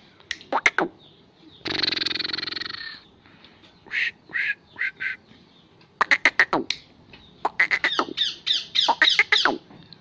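Agitated male black francolin giving sharp, harsh squawking calls, each note dropping quickly in pitch. The notes come in quick runs, the longest lasting about two seconds near the end. About two seconds in there is a harsh, buzzing rasp that lasts about a second.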